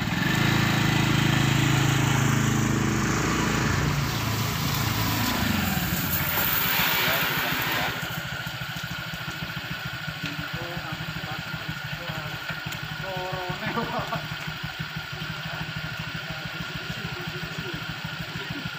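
Motor scooter engines: one runs loudly over the first few seconds, its pitch falling as it rides off, then another idles more quietly for the rest of the time.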